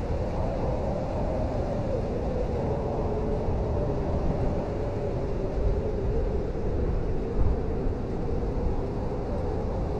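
Blizzard wind howling steadily: a deep rumble with a wavering, whistling tone above it.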